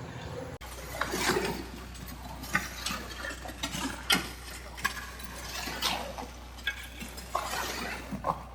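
Irregular knocks and scrapes of hand tools working wet ready-mix concrete, over a steady low hum.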